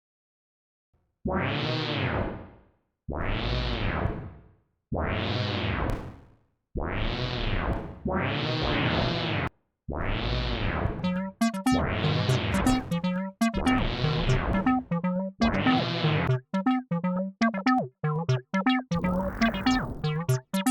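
Browser-based TB-303 emulator playing acid-style synth bass notes, starting about a second in. First comes a series of long notes, each one's tone sweeping brighter and then duller as the filter opens and closes. From about ten seconds in, a quicker run of short notes follows.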